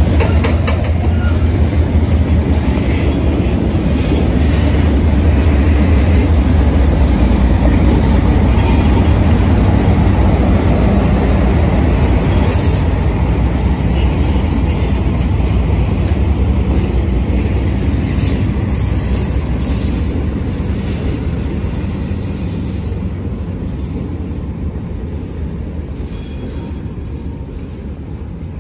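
Freight train on a branch line: a cut of freight cars rolling slowly past with a steady low rumble and occasional sharp clicks. It grows fainter over the last several seconds as it moves away.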